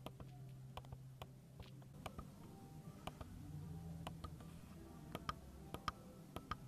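Soft clicks of the Lexus ES300h's steering-wheel switch buttons being pressed one after another, about a dozen irregular clicks, over a faint low hum.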